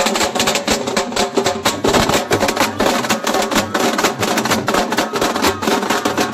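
A procession drum band of large bass drums and snare drums beaten with sticks, playing a fast, loud, unbroken rhythm of rapid strokes.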